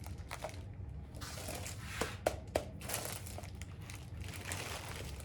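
Packaging being handled and crinkled while ceiling fan parts are unpacked from the box, with a few sharp clicks about two seconds in.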